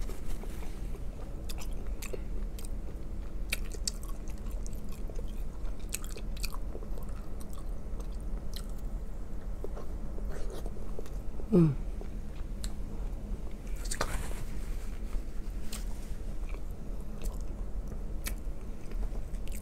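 Close-up eating sounds: a person chewing and biting into shrimp-boil food, including a peeled boiled egg, with many small wet mouth clicks. About halfway through comes a short hum of the voice, falling in pitch.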